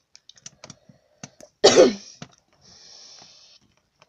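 A person coughs once, loudly, a little under two seconds in, among small scattered clicks; a soft hiss follows about a second later.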